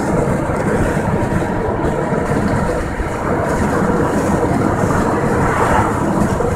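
Steady road noise of a car driving along a highway, heard from inside the cabin: tyres on asphalt and the engine running with no change.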